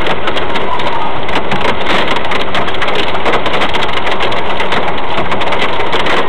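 Hailstones pelting a car's roof and windscreen, heard from inside the cabin: a loud, dense, continuous clatter of many small impacts.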